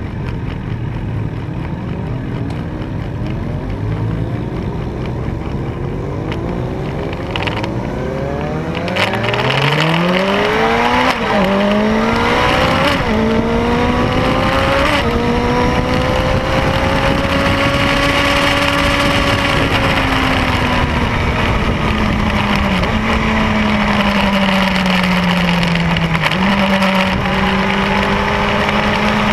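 Triumph Speed Four's inline-four engine heard onboard: running at low revs for the first several seconds, then accelerating hard about eight seconds in, its pitch climbing through the gears with quick drops at each upshift. It then holds a high steady note with wind rushing over the rider, winds down as the bike slows, and jumps up again with a downshift near the end.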